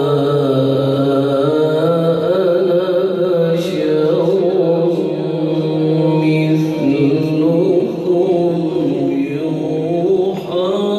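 A male qari reciting the Quran in Arabic in the melodic chanted style, one voice drawing out long held notes that turn slowly in pitch.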